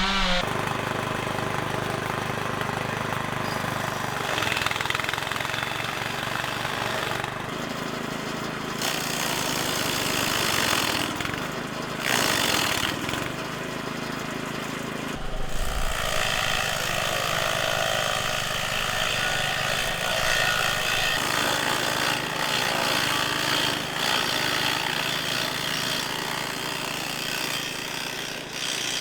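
Small petrol engine running steadily, driving a motorized cutter through banana tree trunks, its sound shifting several times as the cutting goes on.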